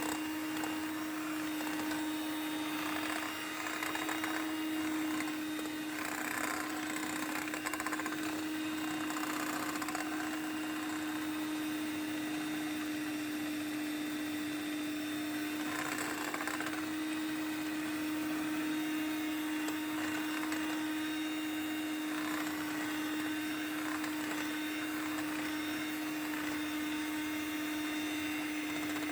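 Electric mixer running steadily at one speed, beating eggs and sugar in a bowl until the sugar dissolves.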